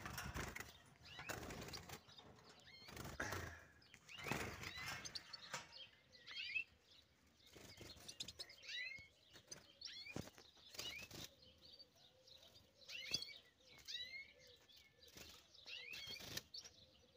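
Many short, high chirps from caged finches in a breeding aviary, coming again and again, with several brief rustling bursts over them.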